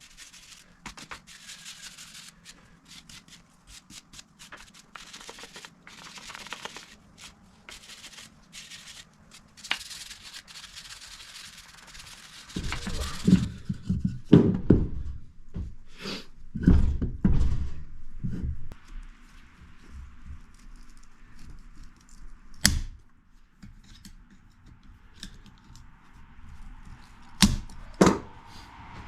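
Hand wire brush scrubbing dirt off the outside of a hydraulic motor's metal housing in quick, scratchy strokes. Several heavy thuds and knocks follow about halfway through, then a few sharp metallic clicks.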